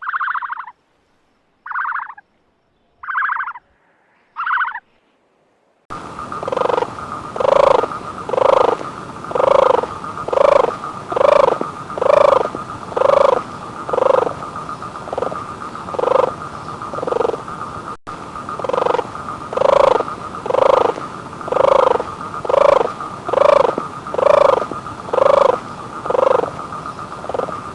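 Animal calls: four short calls with gaps between them, then a long regular series of calls, about one a second, over a steady high drone.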